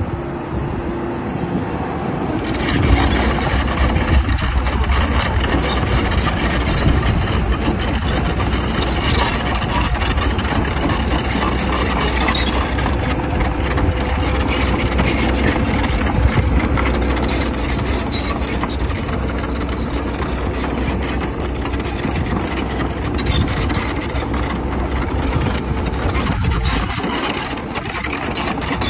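A 2023 Kobelco SK75 excavator's diesel engine running steadily, heard up close. It grows louder and deeper about two and a half seconds in, then holds.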